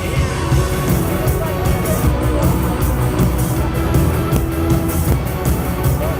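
Rock song played by a band, with guitars and steady drum beats.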